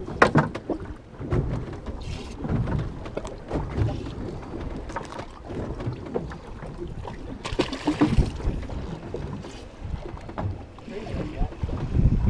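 Wind buffeting the microphone over water lapping against a small boat's hull, with scattered clicks and knocks from handling a fish and fishing tackle.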